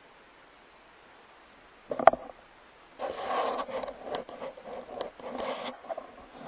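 A single sharp knock about two seconds in, followed by about three seconds of irregular scraping and rustling.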